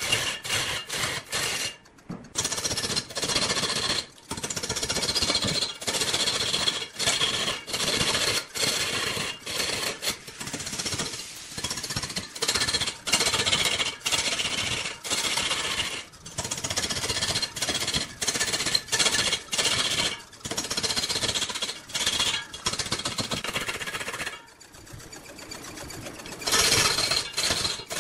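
Turning tool cutting into red incense wood spinning on a large wood lathe: a harsh scraping hiss that breaks off in short gaps every second or so, with a quieter stretch a few seconds before the end.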